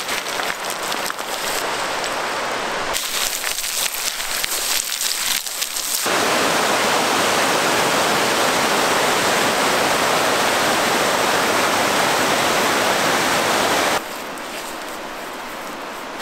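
Rushing mountain stream tumbling over boulders: a loud, even rush of water from about six seconds in that cuts off suddenly near the end to a fainter steady hiss. Before it, footsteps crunch on loose river stones with water running behind.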